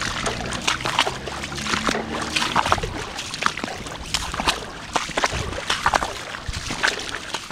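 Footsteps splashing and sloshing through shallow floodwater on a paved path, in irregular steps, over the steady hiss of falling rain.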